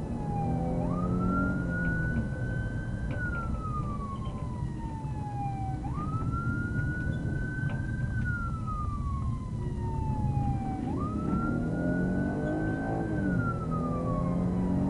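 Police car siren on wail, sounding an emergency response: the tone climbs quickly, rises a little further, then slides slowly back down, repeating about every five seconds. Steady engine and road noise from the moving cruiser lies underneath.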